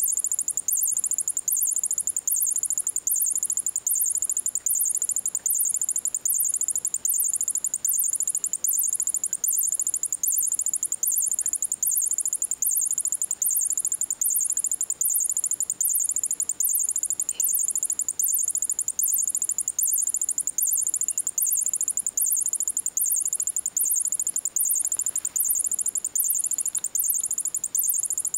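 Electronic squeaky mouse cat toy chirping nonstop, a high-pitched chirp repeating evenly without a break. Its circuit has shorted out after being dropped in a water bowl.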